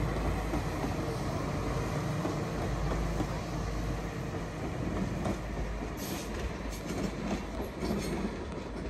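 A train running through the station: a steady low rumble, with a run of sharp clicks from the wheels and rails in the last few seconds.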